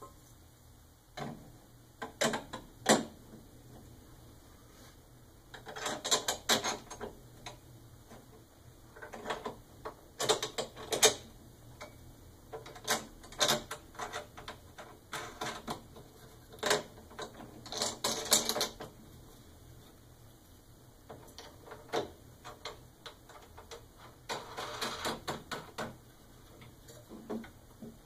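Hand assembly of a snow blower's handle: irregular bursts of clicks, rattles and scrapes as the metal handle tubes, bolts and plastic knobs are handled and fitted.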